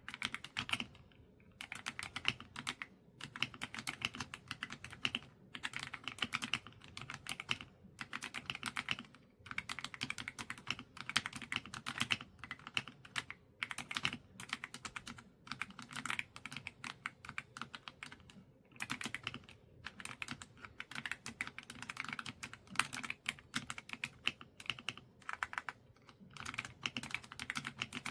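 Fast typing on an AULA F99 mechanical keyboard with pre-lubed linear switches: a steady patter of deep, muted 'thocky' keystrokes in runs of a few seconds with short pauses between them.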